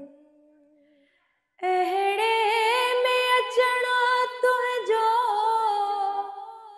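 A woman singing Sindhi verse unaccompanied. A held note fades out, and after a brief pause about a second and a half in she sings one long, wavering melodic phrase with ornamented turns, which trails off near the end.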